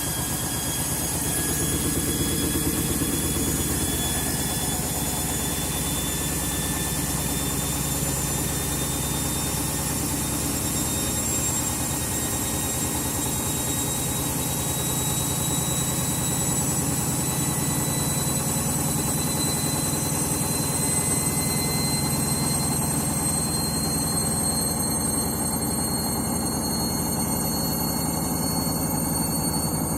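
Candy washing machine on its final spin with a load of bedding: the motor whines and the drum rumbles steadily, the whine rising slowly in pitch as the spin speed climbs.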